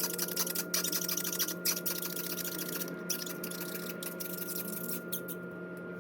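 A wine cork being reamed out by twisting a metal bottle opener in its hole: rapid scratchy squeaking and rasping that thins out near the end, over a steady hum.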